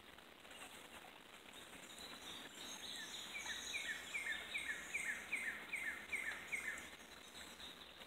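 A bird singing a run of about nine or ten short down-slurred notes at an even pace, about two and a half a second, swelling through the middle and stopping about two-thirds of the way in, over a faint steady hiss.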